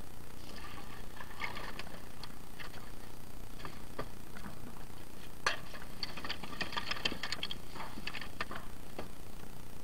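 Scattered clicks, clinks and light rattles of hard items being handled and shifted, bunched about a second in and again for a few seconds past the middle, over a steady low background rumble.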